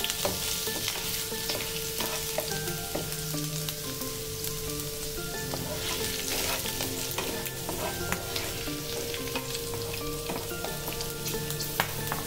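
Chopped garlic and green chillies sizzling in hot oil in a non-stick frying pan, with a steady crackle, while a wooden spatula stirs and scrapes them around the pan.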